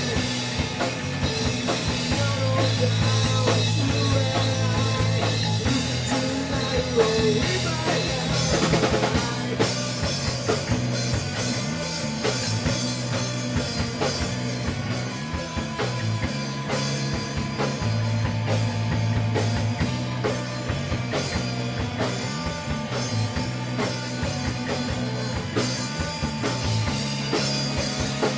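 Rock band playing live, drum kit driving a steady beat under sustained low bass notes.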